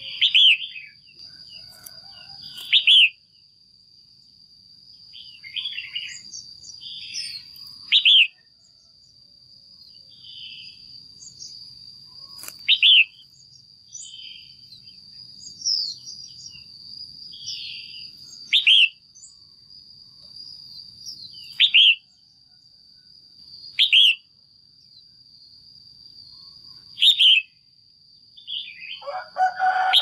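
Female red-whiskered bulbul calling: short, loud, clear calls every few seconds, about nine in all, with softer chirps between them. These are the calls used to stir up males or to pair birds. A thin, steady, high-pitched tone sounds underneath.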